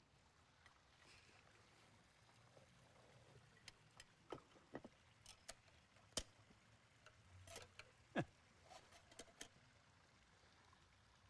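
Near silence broken by scattered faint clicks and small knocks for several seconds, with one short falling squeak about eight seconds in. The sounds come from someone handling a stone columbarium niche, its small door and the urn inside.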